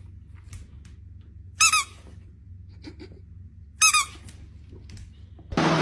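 Rubber squeaky dog toy being chewed by a dog: two short, high-pitched double squeaks about two seconds apart. Just before the end a loud steady mechanical hum cuts in.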